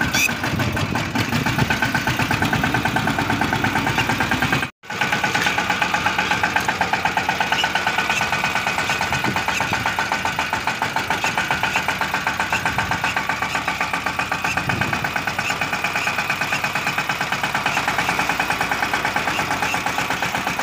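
Compact farm tractor's diesel engine running steadily with a fast, even beat as it pulls an inter-row cultivator through the soil, heard from on board. The sound cuts out for a moment about five seconds in.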